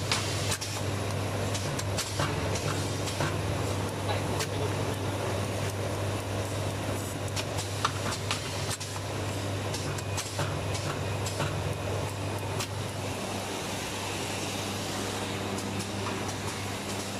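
Automatic dog-poop bag-on-roll making machine running: a steady low hum with sharp mechanical clicks at irregular intervals, fewer of them in the last few seconds.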